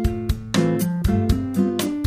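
Background music: an upbeat tune led by strummed or plucked guitar over a steady beat.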